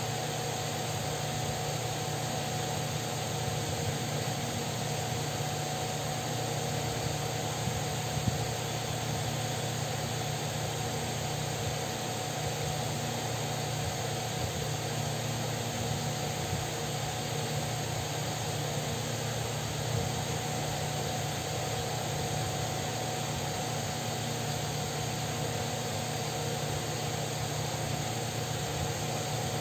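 Electric fan running steadily: an even whirring rush with a constant low hum and a thin steady whine.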